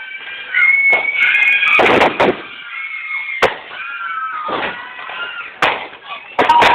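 New Year's fireworks and firecrackers going off: several sharp bangs at irregular intervals over wavering high tones.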